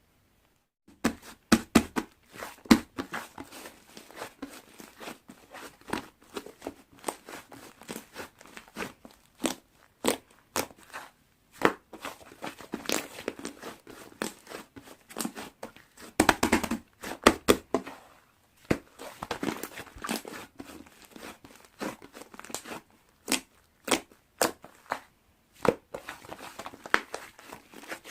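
Slime being squeezed, stretched and poked by hand, making irregular sticky clicks, pops and crackles that start about a second in.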